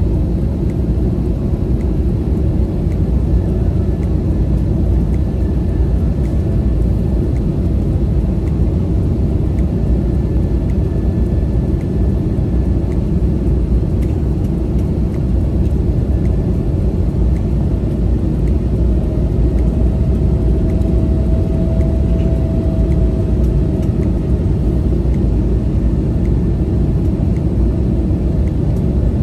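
Cabin noise of an Airbus A321neo: a steady low rumble of engines and airflow, with a faint thin tone that comes in for a few seconds about two-thirds of the way through.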